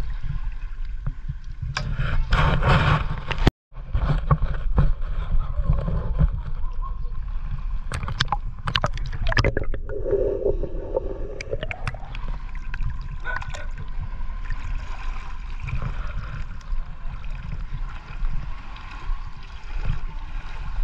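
Water sloshing and splashing over a steady low rumble, with louder splashy bursts about two seconds in and again around eight to nine seconds in.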